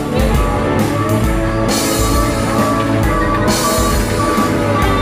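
Loud rock music playing steadily.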